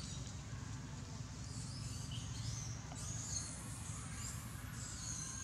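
Thin, high-pitched animal chirps and squeaks over a steady low rumble, coming in repeatedly from about a second and a half in.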